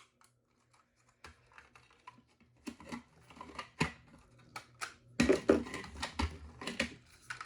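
Plastic handling noise: scattered clicks, light knocks and rustling as a plastic smoke alarm and its packaging are handled, getting busier about halfway through.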